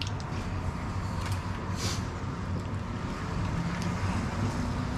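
Steady low background hum of the room, with a few faint clicks and a short hiss about two seconds in.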